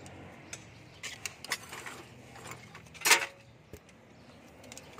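Hand tools clinking and knocking against the metal of a diesel engine's inline fuel injection pump and its bracket as it is pried apart: several light clinks, then one loud ringing metal clank about three seconds in.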